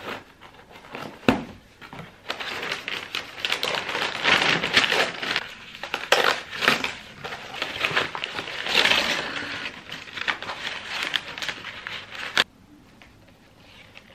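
A box cutter slits the packing tape on a cardboard box, with a few sharp clicks and scrapes. Then kraft paper packing crinkles and rustles loudly as it is pulled out of the box and unfolded. The crinkling stops abruptly near the end.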